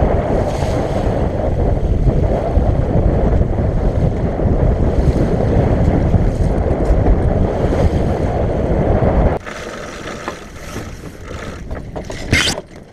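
Wind buffeting a camera microphone aboard a small sailing yacht under way in choppy water: a loud, low rumble that drops abruptly about nine seconds in. After the drop there is quieter rushing of wind and water with a few knocks, and a brief higher-pitched sound near the end.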